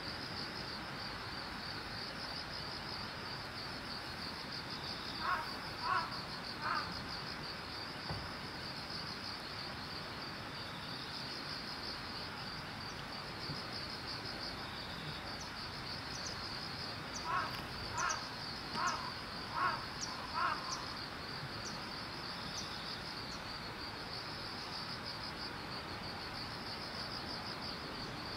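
Steady, fast-pulsing chirring of field insects in an open grassy field. Twice it is joined by a run of short, evenly spaced pitched calls: three about five seconds in, and six more from about seventeen to twenty-one seconds in.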